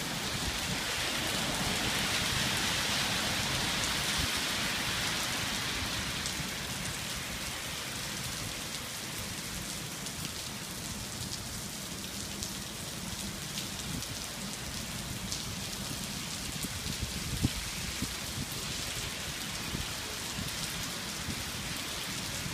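Heavy rain pouring onto a street and pavement: a steady hiss of dense drops spattering, heaviest in the first few seconds and then easing a little. One sharp tap stands out about two-thirds of the way through.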